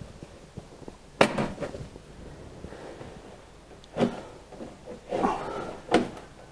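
A plastic coolant tub being handled and shifted about, giving four short knocks and clunks: one about a second in, one about four seconds in, and two close together near the end, with some scraping between them.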